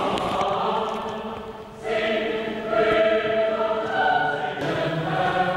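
Choir singing slow, sustained chords. The sound fades briefly about one and a half seconds in, and a new chord enters just before the two-second mark.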